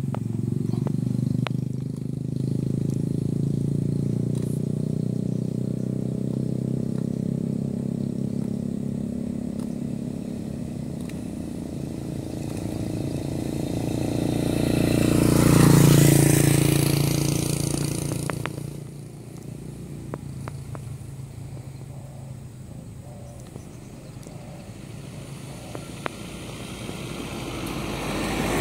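Motor vehicle engine running with a steady low hum, then rising to a loud pass-by about halfway through and fading away. Another one begins to approach near the end.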